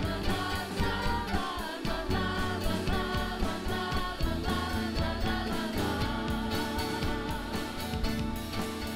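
A mixed group of voices sings a wordless "la la la" refrain in unison and harmony over instrumental accompaniment with a steady beat.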